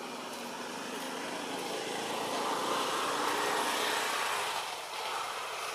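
A motor vehicle passing by: its engine and road noise swell to a peak about three to four seconds in, then fade.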